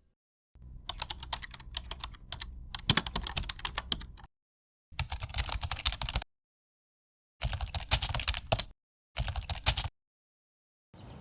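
Rapid computer-keyboard typing clicks in four short spells, each cut off into dead silence.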